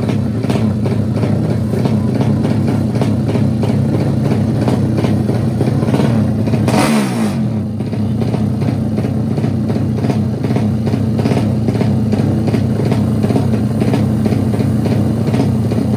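Drag-racing motorcycle engine running steadily while the bike waits at the start line. About seven seconds in, a brief rushing sound with a dip in pitch passes over it.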